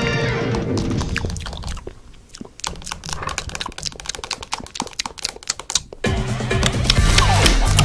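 TV logo ident soundtrack: music fades out, then a few seconds of quick, irregular clicks. Loud music cuts in suddenly about six seconds in.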